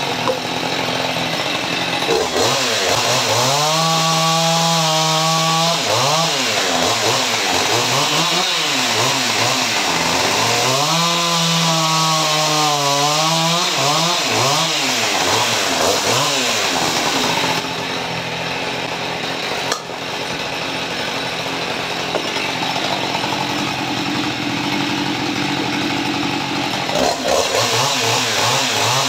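Husqvarna 550 XP Mark II two-stroke chainsaw running at high revs and cutting through firewood logs. Its pitch holds steady while it bites, then swoops up and down as the throttle opens and closes. A little past the middle it runs somewhat quieter and duller for several seconds.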